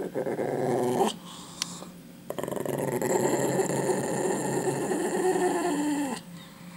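Pekingese growling to guard a chicken bone: a short growl, a brief break, then a longer growl of about four seconds that drops in pitch as it ends.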